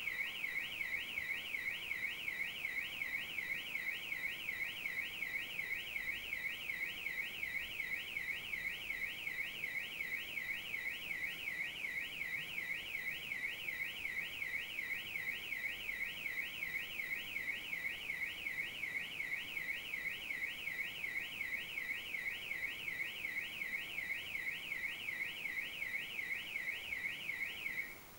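Audi A4's alarm siren going off: a loud electronic warble sweeping rapidly up and down, about two and a half sweeps a second, that cuts off near the end.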